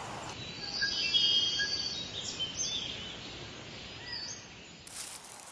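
Birds chirping and calling in short high notes over a steady outdoor background hiss.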